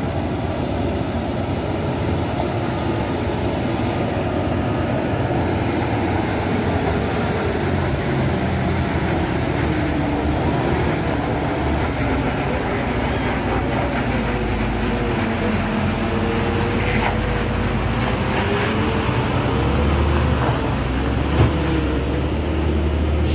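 Diesel engine of a Hino refrigerated box truck pulling up a steep, rough incline, its pitch wavering, growing louder as it comes close and passes. A single sharp click near the end.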